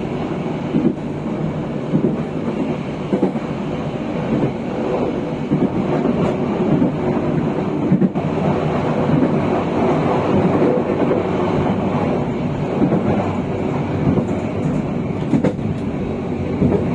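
Train running along the track, heard from on board: a steady rumble of wheels on rail with occasional sharp clacks over rail joints.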